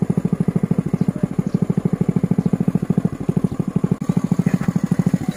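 Small engine running steadily, with a fast, even pulse of about thirteen beats a second.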